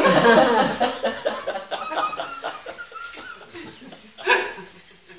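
A man laughing heartily: a run of quick laughs that fades away over about three seconds, then a short burst of breath about four seconds in.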